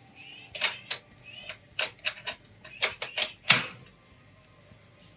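Stainless steel malt basket and its support ring clanking against the Anvil Foundry kettle: a quick run of about ten sharp metal clinks and clanks with short squeaks among them, ending in one heavier clunk.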